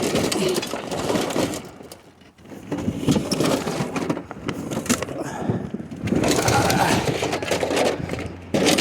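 Junk being shifted and dragged by hand: scraping, rustling and knocking as objects are pulled from under a sofa, with a short lull about two seconds in.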